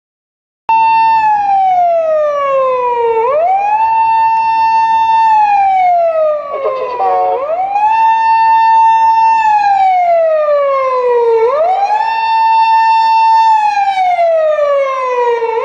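Police patrol car's electronic siren wailing, cutting in abruptly under a second in. Each cycle rises quickly, holds high, then falls slowly, repeating about every four seconds.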